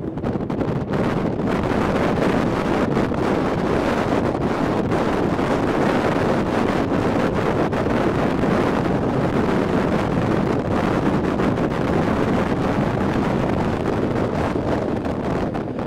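Steady rush of wind buffeting the microphone held out of a moving Rhaetian Railway train's window, mixed with the train's running noise.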